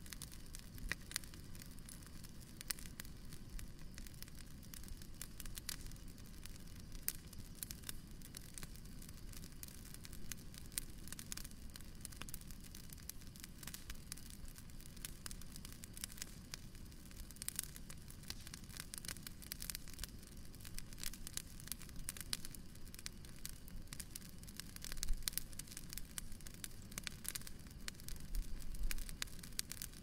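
Bonfire crackling and popping: irregular sharp snaps over a steady low rumble of burning, with a couple of louder flurries of crackles in the last few seconds.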